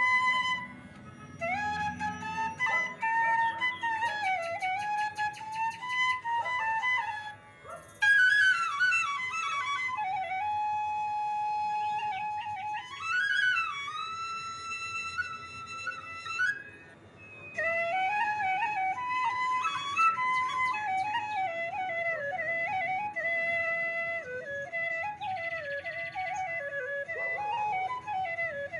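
Background music led by a flute playing an ornamented, gliding melody in phrases separated by short pauses.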